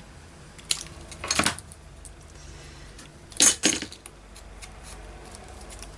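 Scissors cutting paper: a few short, sharp snips and clicks, the loudest about three and a half seconds in.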